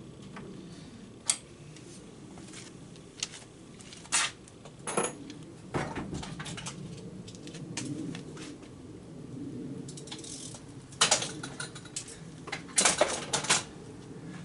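Hand tools and small metal parts clinking while the carburetor float bowl is unbolted: scattered sharp clicks, with quick runs of clicks about eleven and thirteen seconds in.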